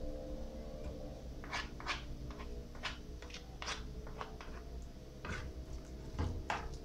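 Metal spoon clinking and scraping against an aluminium pan and a china plate while scooping out sticky cocada, about a dozen light, irregular clicks.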